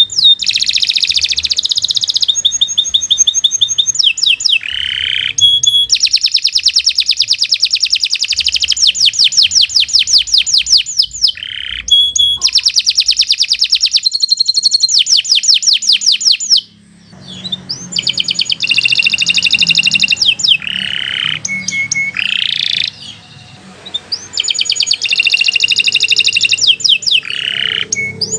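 Domestic canary singing a long, continuous song: fast rolls of rapidly repeated high notes, each roll held for several seconds, with short breaks between phrases and a longer pause about two-thirds of the way through.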